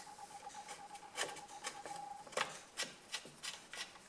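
Faint scattered clicks and rubbing of metal parts and a tool being handled as the bar nuts are worked off a Husqvarna A100 chainsaw. A faint steady high tone stops about two seconds in.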